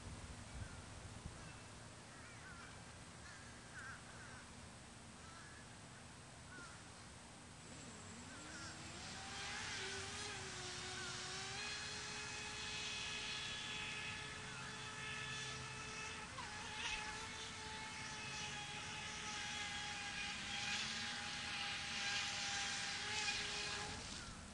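Atomik Barbwire RC speedboat's motor whining as it races across the water: the pitch climbs about eight seconds in, then holds high and steady over a hiss of spray, and drops away just before the end.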